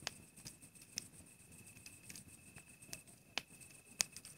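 Bush crickets trilling in one steady high note, with a campfire giving a few sharp crackling pops over it.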